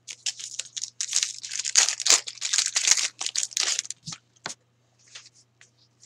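Hockey card pack wrapper being torn open and crinkled: a dense run of crackling for about four seconds, then a few light clicks as the cards are handled.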